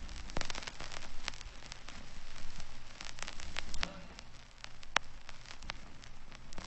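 Faint crackle: irregular sharp clicks over a steady low hiss, with a faint low hum beneath.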